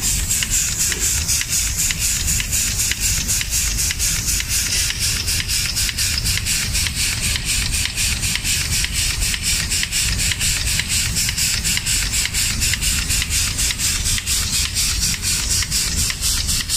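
Automatic painting line machinery running steadily and loudly, with a rapid even pulsing of about five beats a second.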